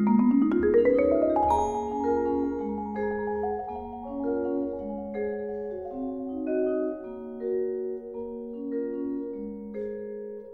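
Marimba and percussion quartet playing: a quick rising run of notes in the first second or so, then long rolled notes in chords that shift about every second.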